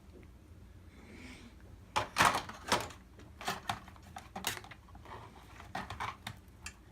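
Irregular sharp clicks and knocks of a projector's plastic and metal internal parts being pried and pulled loose by hand, starting about two seconds in.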